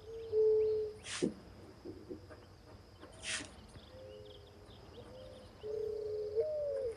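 Mourning dove cooing: soft, low hoots held on one pitch, the last one near the end sliding up. A short breathy hiss comes about a second in and another at about three seconds.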